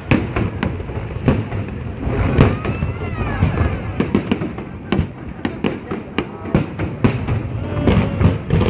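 Aerial fireworks bursting in a rapid, irregular series of sharp bangs, several a second at times, over a steady background of crowd noise.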